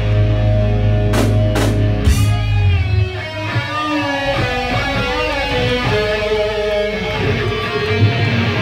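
Live hard rock band playing: electric guitars over bass and drums, with three sharp drum hits about a second in, then a guitar lead with bending notes.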